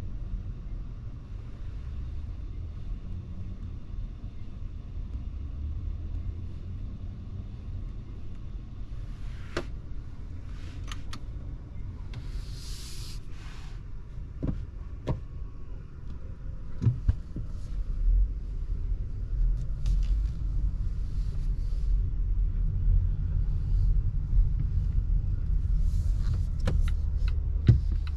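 Cabin sound of a 2023 Volvo XC40 Recharge electric SUV: a low steady rumble that grows louder about two-thirds of the way through as the car pulls away, with a few sharp clicks and a brief hiss in between.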